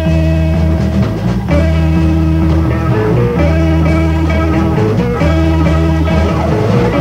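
Psychedelic rock band playing an instrumental passage without singing: electric guitar chords over held bass notes.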